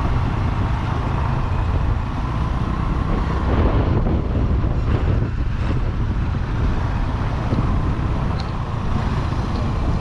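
Wind buffeting the microphone with a motorbike engine running underneath while riding along a road: a steady, loud rush, mostly low in pitch.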